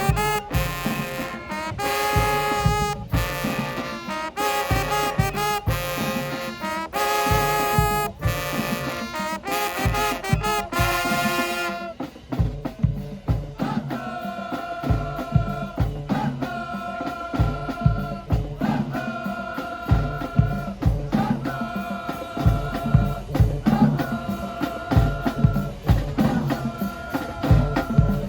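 High school marching band playing: brass chords over drums and crashing cymbals, then about twelve seconds in the cymbals drop out and the horns hold a long note about every two seconds over the drum beat.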